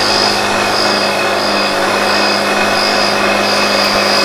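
A motor-driven shop machine or power tool running steadily: a low hum under a high whine that pulses about once every 0.7 seconds.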